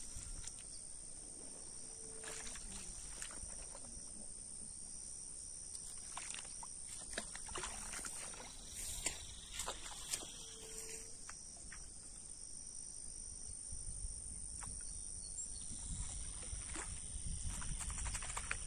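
Open-air ambience by a reservoir: a steady high-pitched drone under a low wind rumble, with scattered rustles and clicks in the grass. A short, low animal call repeats three times, about eight seconds apart.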